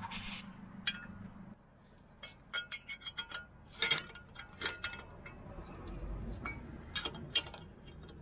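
Scattered metallic clinks and taps, some ringing briefly, from bolts being threaded into the holes of a 1998 Toyota Starlet's brake disc and turned with a ring spanner. The disc is stuck on the hub, and the bolts are used to push it off.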